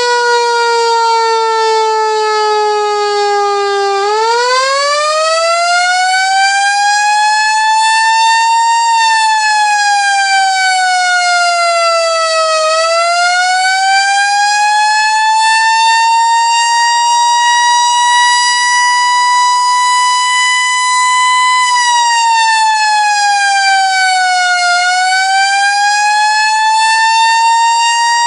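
Federal Q1B electromechanical siren winding down for about four seconds, then spinning back up into slow rising and falling wails. It holds steady at its top pitch for several seconds midway, then dips and climbs again near the end.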